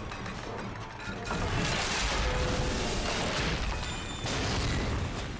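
Dramatic film score over a deep rumble and crashing of debris being blasted into the air, swelling about a second in and again near the end.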